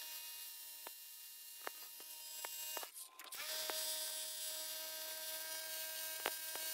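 Electric SDS rotary hammer running against a seized, heavily corroded rear wheel bearing hub, a steady whining hum with scattered sharp knocks of the bit on the hub. It cuts out briefly about three seconds in and then starts again.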